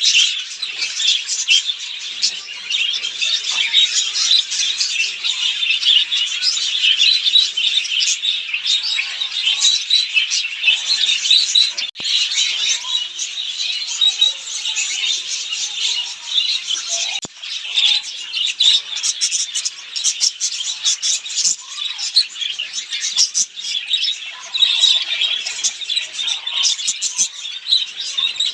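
A flock of small cage birds chirping and chattering all at once, a dense, unbroken stream of high chirps and squawks.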